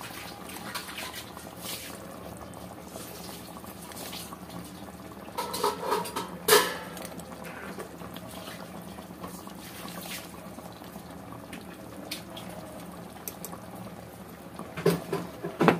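Chicken curry with masala frying in a large aluminium pot on a gas stove, a steady bubbling sizzle. A sharp knock sounds about six seconds in, and a few lighter ones near the end.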